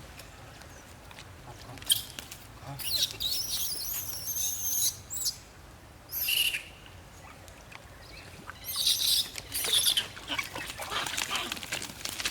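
Bursts of high-pitched squeaky calls that rise and fall in pitch, a few seconds in, briefly around six seconds, and again near the end, mixed with light clicks.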